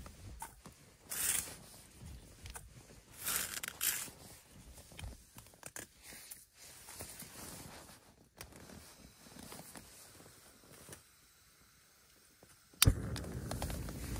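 Handling noises of a Jetboil stove on its gas canister: rustling and scraping of tent fabric and hands, with small clicks and knocks of the stove parts. Near the end a sharp click, then a steady rushing noise starts and keeps going.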